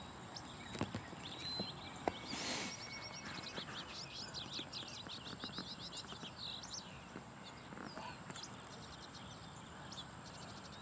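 Small birds chirping, with a quick run of repeated chirps a couple of seconds in, over a steady high-pitched insect drone.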